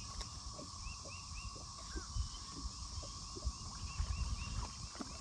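A songbird singing a short phrase of three quick rising-and-falling notes, repeated several times, over a steady insect drone and low wind or water rumble.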